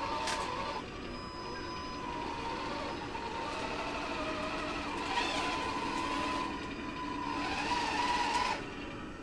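1:16 scale RC model tanks driving: electric drive motors and gearboxes running with a steady whine, the Leopard 2A6 model towing the T-55 model. The sound rises twice and cuts off suddenly near the end as the tanks stop.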